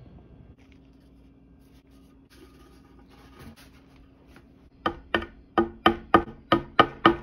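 Quiet room tone, then from about the middle on a run of sharp knocks, two to three a second, each with a short ring: a small hammer tapping a nail into a hardwood board.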